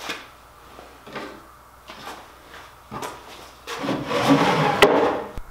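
Wooden sliding extension of a plywood outfeed table worked in its frame: a few short wooden scrapes and knocks, then a longer, louder sliding rub of wood on wood about four seconds in, ending in a sharp click.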